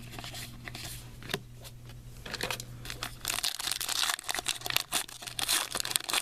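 Crinkly trading-card pack wrapper being handled and torn open, with scattered rustles at first and dense, louder crinkling from about two and a half seconds in.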